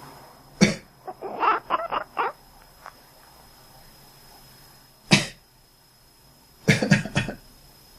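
A person coughs, and a pet cat answers at once with a quick run of short, quack-like chirping calls. Later there is another single cough, then a short burst of coughs near the end.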